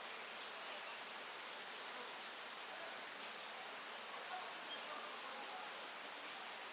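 Insects calling: a steady high-pitched drone that never lets up, with a shorter repeated chirp about once a second, over a soft even hiss of outdoor background.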